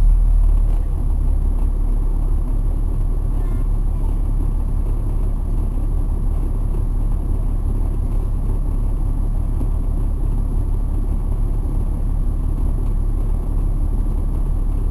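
Caterpillar C9 inline-six diesel of a Neoplan AN459 articulated transit bus, heard from inside the bus cabin while under way: a deep, steady rumble, a little louder in the first second.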